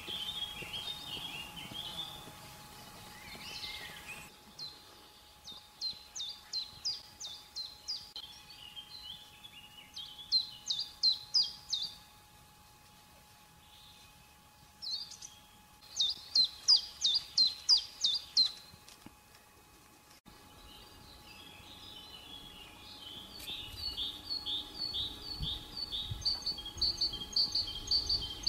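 Small songbirds singing outdoors: several bursts of rapid, high, repeated chirping notes, each lasting a few seconds, with short pauses between them.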